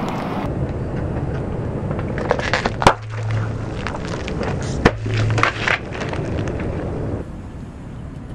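Car tyre rolling slowly over liquid-filled plastic pouches on asphalt, with a steady crackling crunch and two sharp pops about three and five seconds in as pouches burst, each followed by a low hum.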